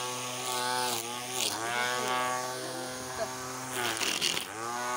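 Electric string trimmer cutting grass, its motor whining at a steady pitch and dipping then picking back up twice as the trigger is eased and squeezed.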